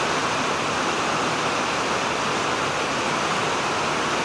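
A river rushing steadily, an even hiss of flowing water.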